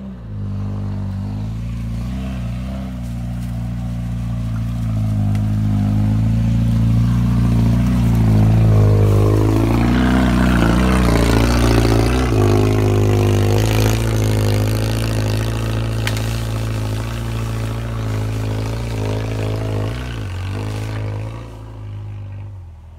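Small off-road vehicle's engine running under load as it climbs a forest trail. It grows louder as the vehicle passes close by about halfway through, with tyres crunching through dry leaves and brush, then fades as it pulls away.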